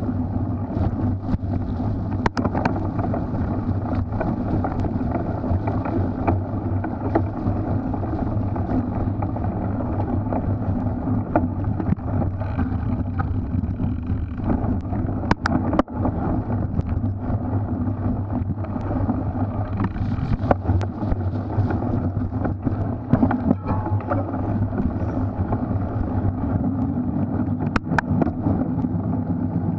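Specialized Crux Elite X1 cyclocross bike being raced over a muddy course, heard through an on-board camera microphone: a steady rumble of wind and riding noise, with sharp knocks here and there from bumps.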